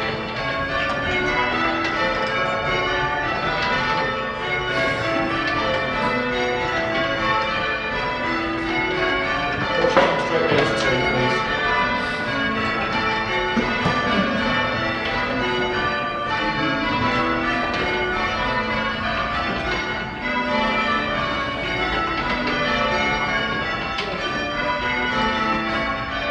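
Change ringing on a ring of six Gillett and Johnston church bells, tenor in A: the bells strike one after another in a steady, unbroken stream of changes, each note ringing on into the next. A brief louder sound stands out about ten seconds in.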